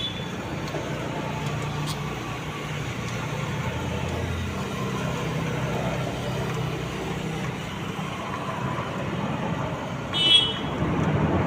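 Steady rumble of passing road traffic, with one short high-pitched toot about ten seconds in.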